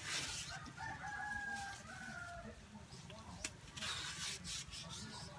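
A rooster crowing once: a single long call beginning about a second in that drops off at the end. Under it are short rustles and snaps of taro stalks being peeled with plastic-gloved hands.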